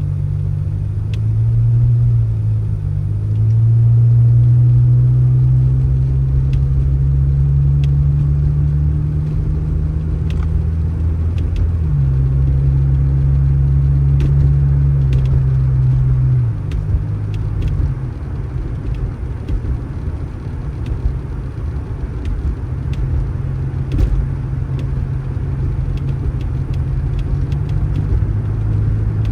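A vehicle engine running with a low, steady drone whose pitch drops about twelve seconds in and thins out about halfway through before building again, with faint ticks scattered throughout.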